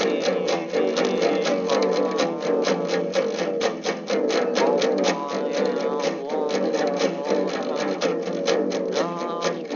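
Background music led by guitar, with a fast, steady plucked rhythm.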